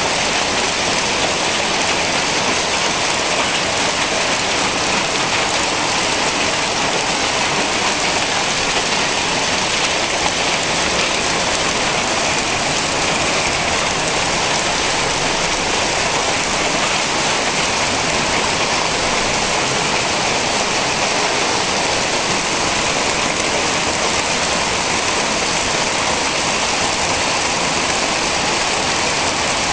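Hailstorm: small hailstones and rain pelting clay roof tiles and a flooded street, a loud, dense, steady hiss and patter.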